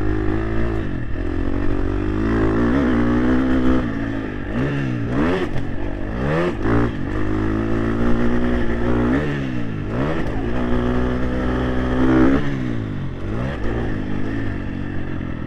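Motocross bike engine heard from the rider's helmet microphone, revving up and down as the throttle is worked. The pitch drops and climbs back several times, about every two to three seconds.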